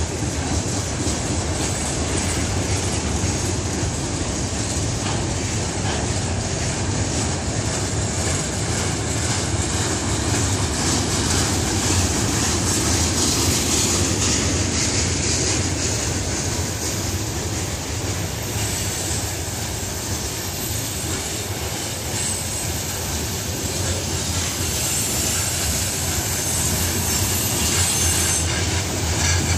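Freight cars of a passing CSX train rolling by close at hand: a steady rumble of steel wheels on the rails, with a high wheel squeal on top.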